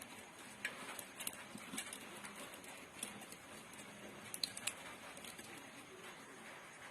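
Faint scattered clicks and light rustling of coil wire being handled and pressed into the slots of a grinder motor's stator while rewinding it, a few ticks a little louder about a second in and again past the middle.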